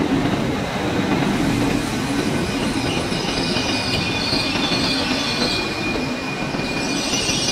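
Passenger train pulling in along a station platform: steady rumble of wheels on the rails with a thin, high wheel and brake squeal over it.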